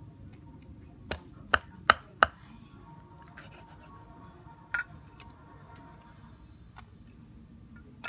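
Cleaver chopping through a freshwater eel onto a thick wooden chopping board: four sharp chops in quick succession about a second in, then a single chop a little before the five-second mark.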